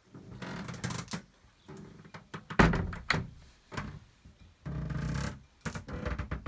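Irregular knocks and thuds mixed with rustling handling noise, the loudest thud about two and a half seconds in.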